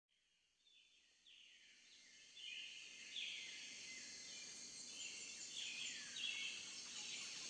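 Birds chirping, fading in from silence: a run of short, repeated, falling calls over a faint high hiss.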